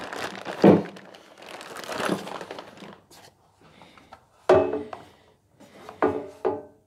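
Plastic bag crinkling as a chip-extraction hood is unwrapped, then three sharp knocks, each ringing briefly, as the hard plastic hood is handled against the planer's metal table.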